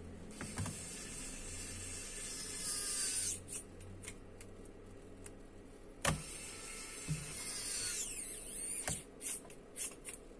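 Small electric screwdriver motor whining, rising in pitch for about three seconds and then stopping suddenly; a sharp knock about six seconds in and a few clicks; about eight seconds in, another short whine falls in pitch as the motor winds down.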